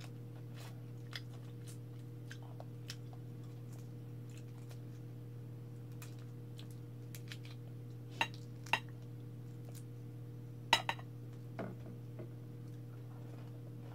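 Crisp cracks and clicks of cooked alimasag (blue swimming crab) shell being broken apart by hand over a plate, scattered and small at first, with a handful of louder cracks a little past the middle. A steady low hum runs underneath.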